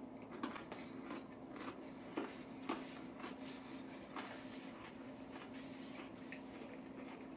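Faint, irregular clicks and crackles of crispy fried chicken being chewed with dentures and of a paper napkin being handled, over a steady low hum.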